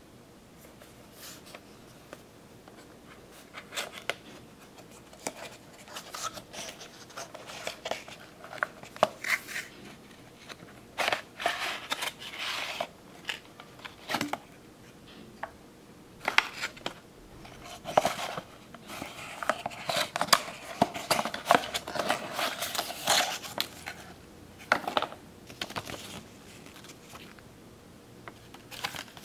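Clear plastic packaging tray and cardboard box being handled: irregular crinkles, clicks and scrapes, which start a few seconds in.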